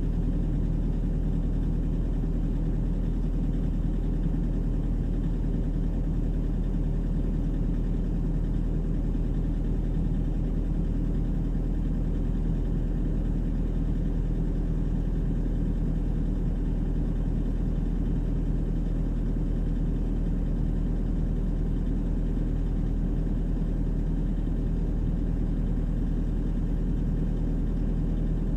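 Volvo EWR150E wheeled excavator's diesel engine running steadily with a constant low hum, heard from inside the cab.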